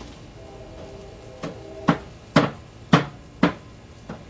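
A run of sharp metal clanks at the wood-fired Argentine grill, about two a second, each ringing briefly, as the fire is tended.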